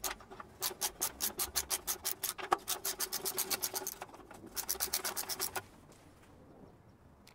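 Socket ratchet clicking rapidly, about seven clicks a second, as it loosens a 12 mm exhaust clamp bolt. It runs in three bursts with short pauses and stops a little before the end.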